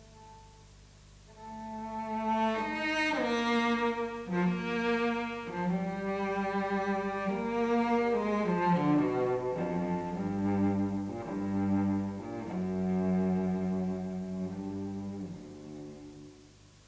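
Cello played with the bow: a slow phrase of long held notes moving up and down in pitch, soft at first, louder from about a second and a half in, then tapering off near the end.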